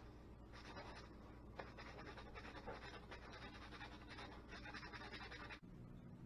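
Faint scratching of sandpaper rubbed by hand along a bamboo cane rod in short, uneven strokes, roughening the spot before a line guide is glued on. It stops abruptly near the end.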